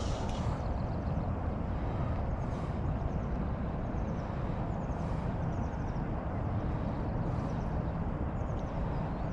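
Steady rushing noise of river water and wind on the microphone, heaviest in the low end, with faint high chirps a few times.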